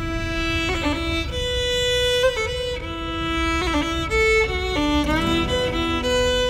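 Recorded Irish folk music: a fiddle plays the melody between sung verses, long held notes at first, then quicker notes toward the end.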